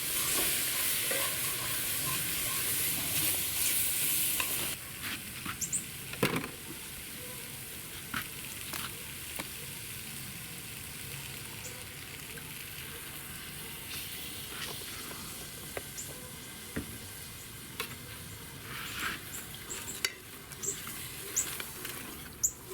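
Corn, peppers and onions sizzling in a buttery roux in a big pot on a gas grill's side burner, with a spoon stirring and scraping against the pot. The sizzle is loud for the first few seconds, then drops suddenly to a quieter hiss with scattered clicks.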